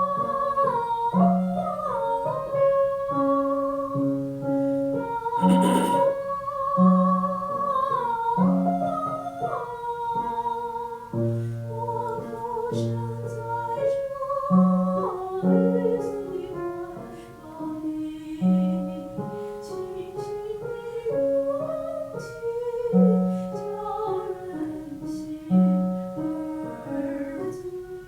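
A woman singing a slow Chinese song in a trained, vibrato-rich voice, holding long notes over a keyboard accompaniment, working at a low-placed, chest-resonant tone. A brief click sounds about six seconds in.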